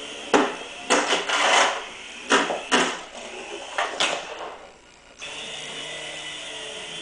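Small RC toy helicopter's electric motor and gears whirring steadily, broken by four loud, rough bursts in the first four seconds. The whir drops away for under a second and then cuts straight back in.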